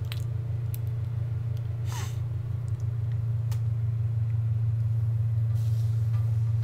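Steady low hum, with a vinyl sheet rustling briefly as it is handled about two seconds in, and a few light clicks.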